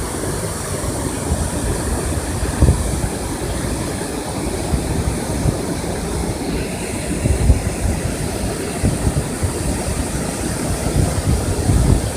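Wind buffeting the microphone in uneven low gusts over a steady rush of water from the dam.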